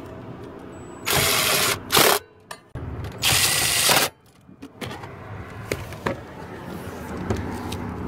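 Rustling and scraping of a phone being handled right against its microphone, in three bursts of about half a second to a second, followed by a few light clicks.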